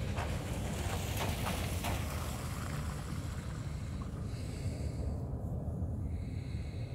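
Steady low rumble of outdoor background noise, with a few faint clicks in the first two seconds.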